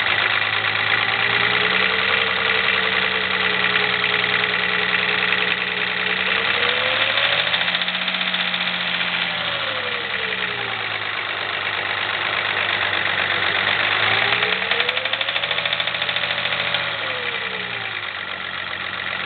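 BMW 524td's 2.4-litre six-cylinder turbodiesel running at raised speed with a diesel knock, revved higher and let back down twice, about seven and fifteen seconds in. The knock comes from an injector nozzle stuck open, so fuel goes in unatomised and ignites late.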